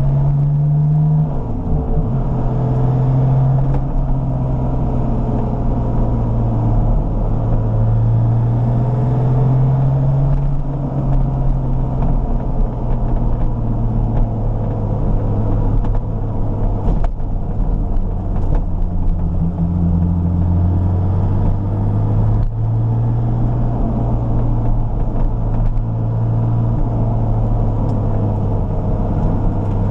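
Porsche 993 RS Clubsport's air-cooled 3.8-litre flat-six, rebuilt and running on a reflashed MoTeC ECU, pulling the car on the road. Its note drops sharply about a second in, as with a gear change or lifting off, then rises and falls gently at moderate revs.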